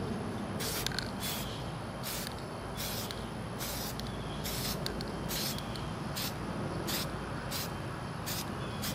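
Aerosol can of Krylon spray paint hissing in short bursts, about eleven of them, one roughly every second, as the paint goes on in even strips. A steady low rumble runs underneath.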